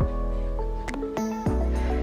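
Background music with held chords and a deep bass drum that drops in pitch on each hit.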